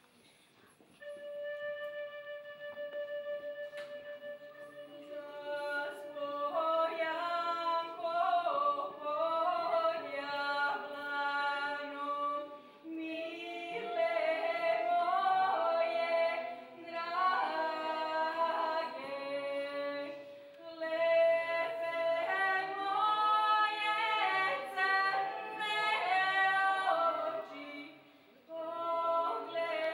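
Vocal ensemble singing largely unaccompanied: one long held note opens, then a woman's lead voice and a group of voices join in several parts, with short breaths between phrases.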